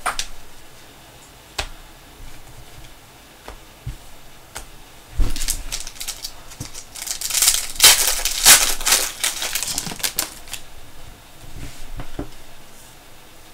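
Trading cards and their packaging being handled on a table: a few scattered clicks and snaps, then a dense run of rapid clicking and rustling for several seconds in the middle, and a few more clicks near the end.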